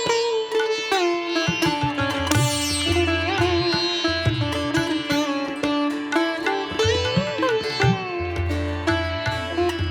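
Background instrumental music: a plucked-string melody with sliding, bending notes over a low pulsing bass.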